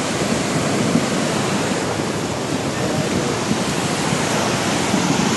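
A muddy, swollen river in flood rushing past in a loud, steady torrent.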